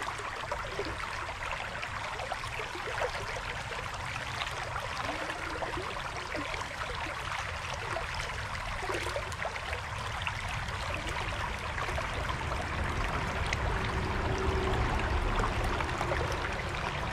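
Small creek running over a shallow riffle: a steady rush and trickle of flowing water, a little louder near the end.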